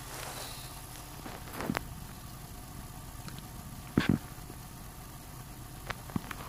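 A steady low hum, with a few sharp knocks and clicks over it; the loudest is a double knock about four seconds in.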